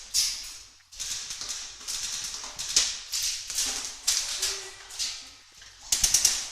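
Airsoft guns firing: scattered sharp snapping shots, with a quick burst of five or six near the end.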